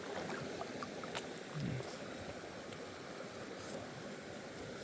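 Steady rush of creek water, with a few faint clicks over it.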